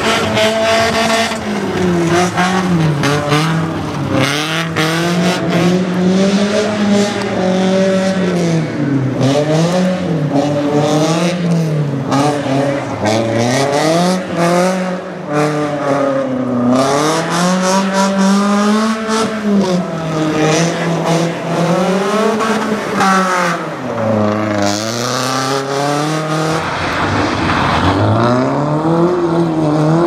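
Rally-prepared BMW E36 Compact's engine revving hard on a dirt slalom course, its note rising and falling many times as it accelerates and lifts between the gates.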